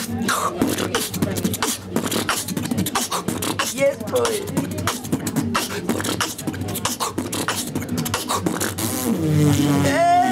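A man beatboxing: fast mouth-made drum sounds, clicks and snare-like hits in a steady rhythm, with a voiced, pitched tone coming in near the end.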